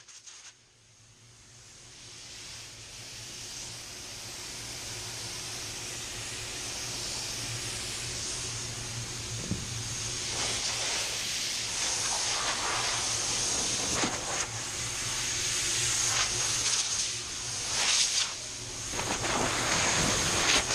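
Steady hiss of moving air that swells up over the first few seconds, with louder surges of hiss in the second half from an HVLP mini-jet touch-up spray gun laying a light coat of waterborne basecoat.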